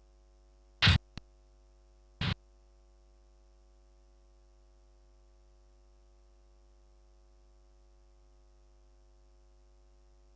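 Two short explosion sound-effect samples auditioned in a music production session: a loud, abrupt boom about a second in, followed by a small click, then a quieter boom just over two seconds in. Both cut off quickly, leaving a steady electrical mains hum.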